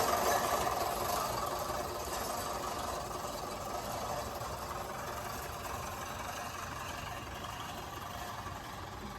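Manual push reel lawn mower cutting grass: the spinning reel blades whir and rattle against the cutting bar in a steady noise that slowly fades. This contact noise is the sign that the reel is adjusted tight enough.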